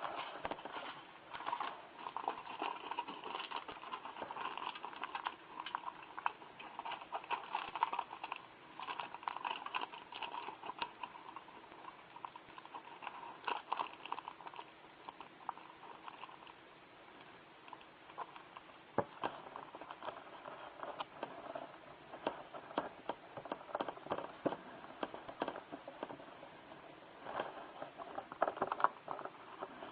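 Heavy-duty aluminum foil crinkling and crackling as it is folded and creased over a pile of cat litter: a steady stream of small irregular crackles. It eases off for a few seconds past the middle, then a sharp click comes before the crackling picks up again.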